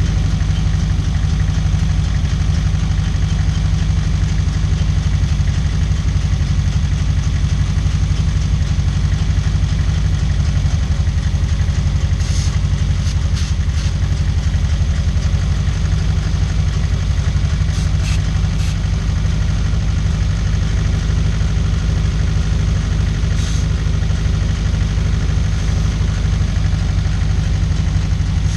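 Toyota 4A-GE 1.6-litre 16-valve four-cylinder engine idling steadily while it is checked for vacuum leaks, with a few short hisses of aerosol carb cleaner being sprayed around the intake, about halfway through and again later. The idle speed holds even.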